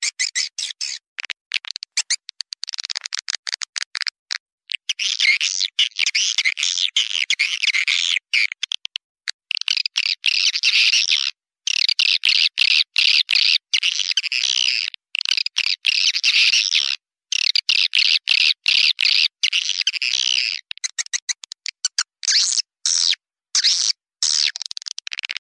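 Swiftlets twittering: a swiftlet-house lure recording of rapid, high chattering calls in dense runs broken by short gaps, thinning to scattered clicks near the end.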